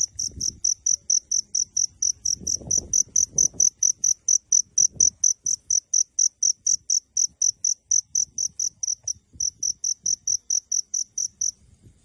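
A cricket chirping: an even train of short, high-pitched pulses, about four a second, with one brief gap about nine seconds in, stopping shortly before the end. Faint low rustling bumps sit underneath.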